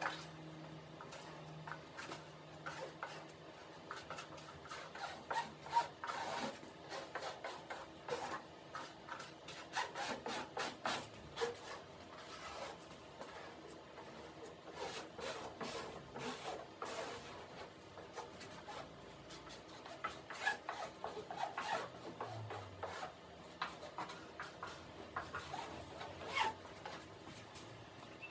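Irregular rubbing and scraping with many short clicks, from gloved hands working fiberglass cloth and epoxy over a leading-edge mould during hand lay-up.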